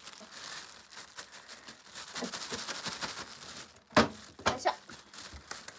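Thin plastic bag crinkling as hands squeeze and work a lump of mochi inside it. A loud sharp click comes about four seconds in, followed by a few smaller ones.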